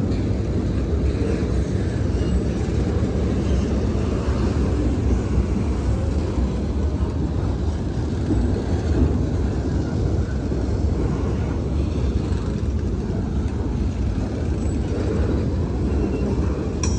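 Norfolk Southern double-stack intermodal freight train's container-laden well cars rolling past, a steady rumble of wheels on rail.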